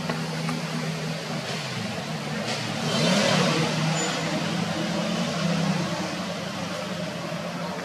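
A motor vehicle engine running steadily, growing louder about three seconds in as it passes, then easing off.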